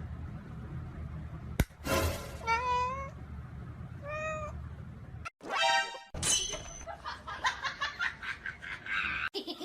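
A cat meowing several times in short separate calls that rise and fall in pitch, with a sharp click shortly before the first call.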